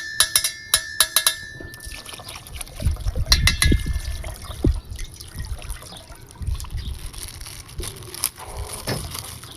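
Water pouring, sloshing and trickling, with a quick run of sharp clicks in the first second and a half, then scattered knocks of handling.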